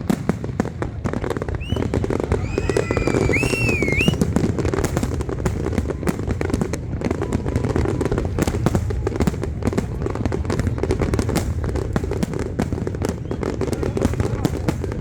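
Fireworks display going off continuously: a dense, rapid crackle of cracks and bangs over a steady low rumble. A few high whistles rise and fall about two to four seconds in.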